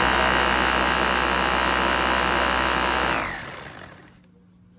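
Dyson V10 Animal cordless stick vacuum running steadily with a high whine, then switched off about three seconds in, its motor winding down in falling pitch and dying away within a second.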